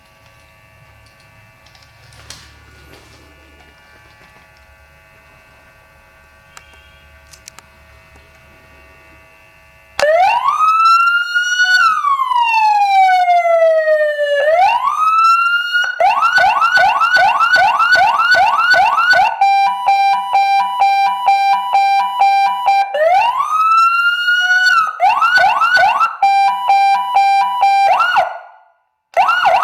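Electronic police siren cycling through its tones, starting about ten seconds in: a slow wail rising and falling, a fast yelp, and a pulsing tone. It cuts out briefly near the end, then the yelp comes back. Before it starts there is only a faint steady hum with a few clicks.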